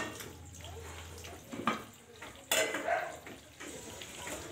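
Steel pots and a saucepan clinking and knocking as they are handled and set down on a concrete floor: a few separate clanks, the sharpest about two and a half seconds in.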